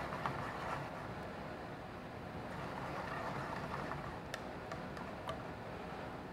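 A spoon stirring a thick tomato sauce in a metal sauté pan, with a few light clinks of spoon on pan, over a steady background hum.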